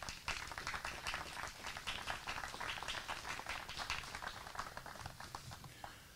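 Small audience applauding faintly, a dense patter of hand claps that thins out and stops near the end.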